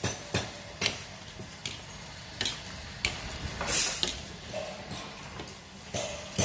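Wire skimmer clanking and scraping against a steel wok as greens are tossed over the flame, in irregular sharp knocks, with a short burst of hissing sizzle about three and a half seconds in.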